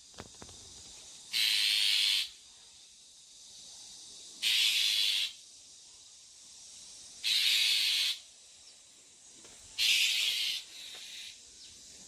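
Bull-headed shrike giving harsh hissing calls at the nest: four rasping bursts, each under a second, about three seconds apart. This is the unusual call the uploader takes for the parent bird guarding its six nestlings.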